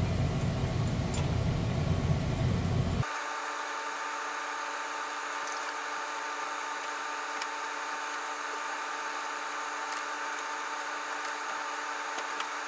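Steady mechanical running noise of an HVAC unit. About three seconds in, the low rumble cuts off suddenly, leaving a thinner steady hum with a few held whining tones.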